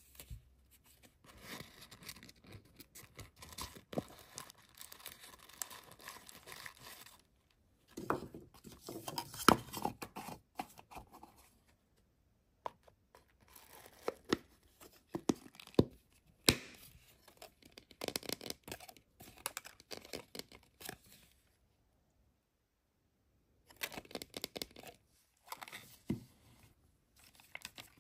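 Tissue paper crinkling and rustling as it is packed into a plastic L.O.L. Surprise! capsule ball, in irregular bursts broken by a few dead-silent gaps, with sharp plastic clicks as the ball halves are pressed shut.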